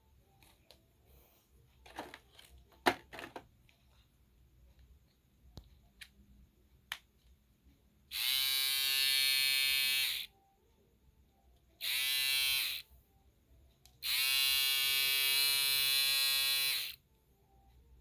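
Small electric body-hair shaver switched on and run three times: a steady buzz of about two seconds, a one-second burst, then about three seconds, each cutting off cleanly. It is preceded by a few clicks of handling.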